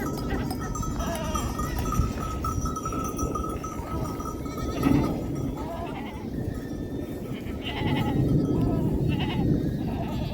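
Sheep and goats of a nomad flock bleating, several separate calls, the strongest about halfway and again near the end, over a constant low rumble.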